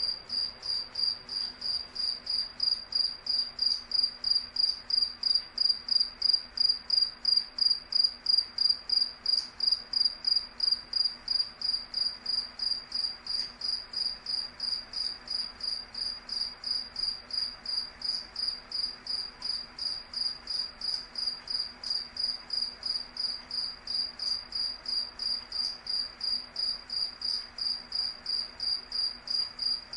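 A single cricket chirping steadily in an even rhythm, about two to three high-pitched chirps a second.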